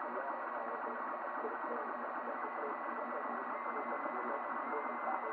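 3D printer running a print: a steady whir from its cooling fans and stepper motors, with a thin high whine that steps up slightly in pitch a few times as the moves change.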